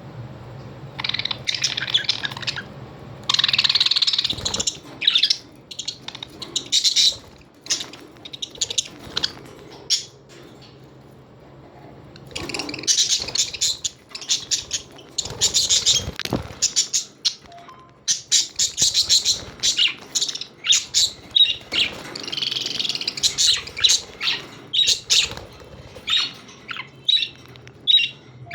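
Australian parrots chirping and squawking in irregular flurries of short high calls, with brief lulls between.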